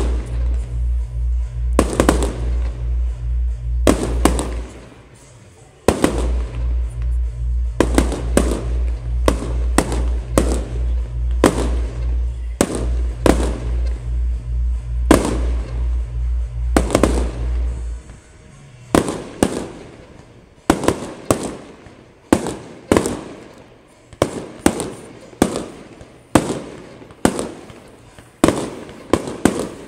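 Fireworks going off: a fast series of sharp bangs, each trailing off briefly. A fast, steady bass beat of music plays underneath and stops about two-thirds of the way through, leaving only the bursts.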